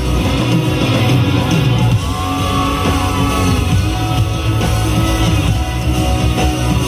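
A live band playing amplified pop-rock music, with strong bass and some singing.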